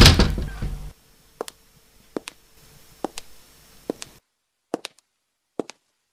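A brief loud pitched sound right at the start, then single sharp footsteps at an even pace, about one every 0.8 seconds. The background drops to dead silence about four seconds in while the steps go on.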